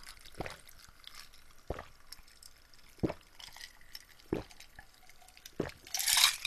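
A person gulping a drink from a glass: five swallows about 1.3 seconds apart, then a short breathy rush near the end.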